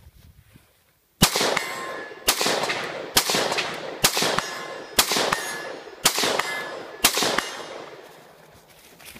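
Semi-automatic gunshots from a custom AK-pattern rifle fitted with a BattleComp muzzle brake: seven shots about a second apart, each ringing out with echo.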